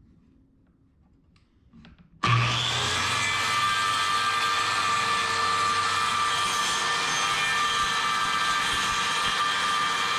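An electric power saw switches on about two seconds in, its motor whine climbing quickly to full speed and then running steadily.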